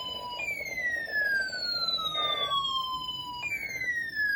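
Electronic siren-like alert tone sweeping down in pitch. Each sweep falls about an octave over roughly three seconds, then it jumps back to the top and falls again.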